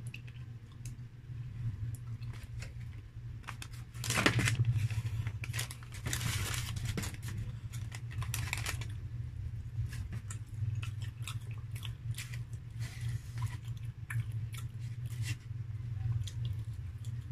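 A KFC paper fries wrapper being torn and rustled in several loud stretches as the fries are emptied out, with small wet mouth clicks and chewing before and after. A steady low hum runs underneath.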